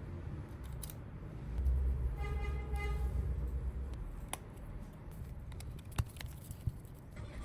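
A low rumble with a brief horn-like tone of under a second about two seconds in, then a few sharp clicks, over a steady low hum. This fits a vehicle honking nearby while small tools click during a phone repair.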